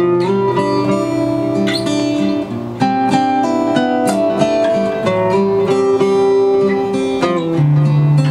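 Steel-string acoustic guitar played as an improvised lead: a quick run of single picked notes drawn from a scale, moving up and down, with lower notes ringing underneath.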